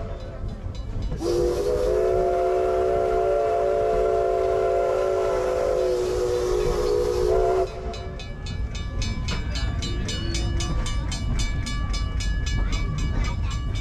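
Steam locomotive's chime whistle blowing one long chord of several tones for about six seconds at a road crossing. After it, a fast, even series of sharp ringing strokes, several a second.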